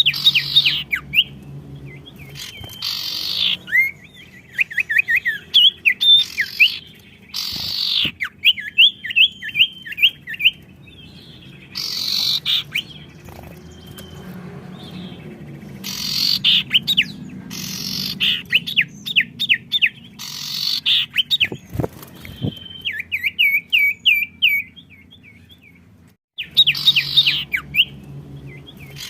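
Songbirds singing back and forth. Each phrase is a short harsh, hissing burst followed by a quick run of sharp, sweeping chirps, and a phrase comes every few seconds.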